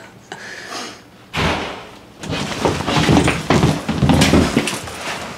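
Bumps, knocks and rustling as a small wooden wall access hatch is handled and pulled open: a sharp knock about a second in, then a busy stretch of knocking and scuffling from about two seconds in.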